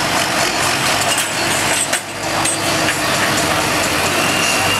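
Large four-wheel-drive farm tractor's diesel engine running steadily at the end of a pull. A steady high tone comes in near the end.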